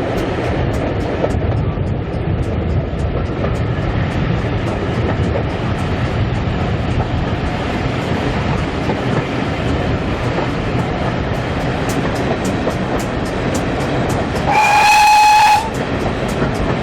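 Steam-hauled train running steadily, a constant rumble with quick regular ticking. Near the end, the GWR Manor Class locomotive's steam whistle sounds once, a single steady note for about a second.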